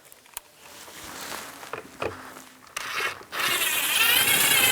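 A few small clicks, then a cordless power driver whirring for about a second and a half near the end as it runs in the door panel screws.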